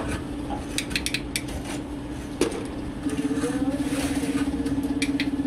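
Small brass inserts and a metal mold clinking and knocking while parts are loaded into a hand-operated injection molding machine, over a steady mechanical hum. There is a cluster of light clinks about a second in and one sharper knock about halfway through. The hum grows louder and pulses from about three seconds in.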